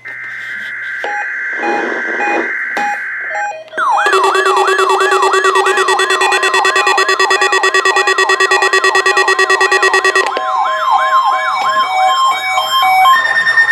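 Layered electronic alarm and siren tones. Steady high tones come first. From about four seconds in, a fast rising-and-falling siren sweep repeats about four times a second over steady beeping tones. From about ten seconds in, several different warbling and steady alarm tones overlap.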